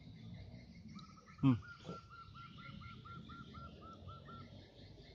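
A bird calling a quick run of short, identical notes, about four a second, for some three seconds, while another bird repeats fainter, higher notes throughout. About one and a half seconds in, a brief loud sound drops sharply in pitch, the loudest thing here.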